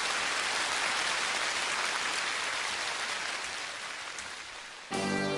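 Steady rushing water noise, like rain or surf, fading out over the last two seconds. Music with sustained notes comes in near the end.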